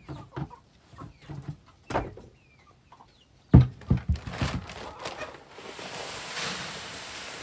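Chickens clucking, with a few loud knocks or thumps past the middle and a steady rushing noise near the end.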